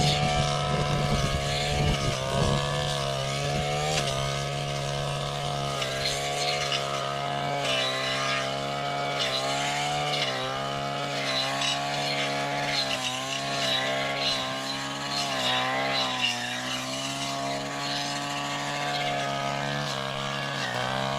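A small two-stroke engine on a handheld power tool, either the chainsaw or the metal-bladed brush cutter, running at high speed. Its pitch dips a little and recovers every second or two as it works.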